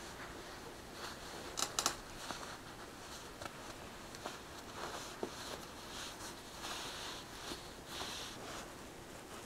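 A ragdoll cat rolling and pawing at an office chair's base on a woven mat: fur and paws rustling and scraping on the mat, with scattered light clicks and a quick cluster of sharp clicks about a second and a half in.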